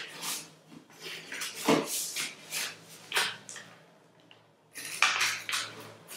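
Sheets of origami paper being folded and creased by hand on a table: a run of short, crisp rustles and swishes, with a pause of about a second past the middle.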